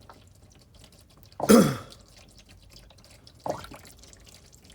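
Warm engine oil draining from a 2015 Corvette Stingray's oil pan into a drain pan, burping: the stream glugs twice, about two seconds apart, as air gulps back into the pan through the drain hole.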